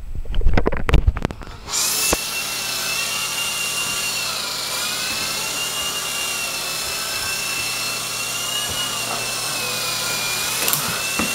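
A few handling knocks, then about two seconds in the remote-control helicopter's motor and rotors start up into a steady high whine whose pitch wavers slightly as it flies.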